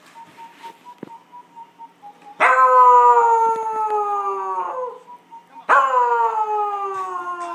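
Dog howling: two long howls, each starting high and sliding gradually lower in pitch, the first beginning about two and a half seconds in and the second near the end.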